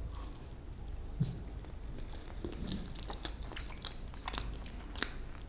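Close-up chewing of a mouthful of caramel-topped cheesecake, with scattered small mouth clicks and smacks.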